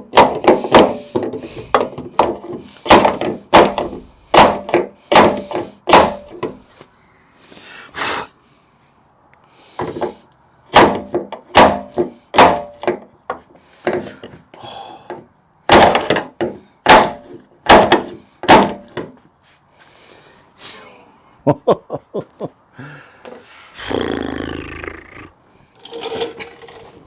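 Hammer blows on the Jeep XJ door hinge, in irregular runs of sharp knocks with short pauses, as a new hinge pin or bushing is driven in.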